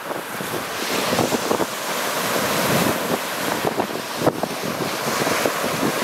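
Lake Superior waves breaking continuously on a rocky, pebbly shore, with wind buffeting the microphone.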